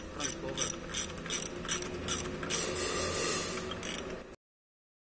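Hand ratchet wrench working a bolt on an engine being dismantled: the pawl clicks in quick strokes, about three a second, running into faster continuous ratcheting a little past halfway, then the sound cuts off abruptly near the end.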